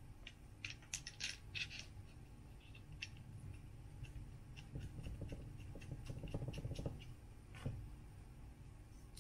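Plastic selfie stick (Velbon & Coleman CVSS-6) being handled: a few light clicks and scratches, then a quick run of fine ratcheting ticks as a part of the grip is twisted, and one last click.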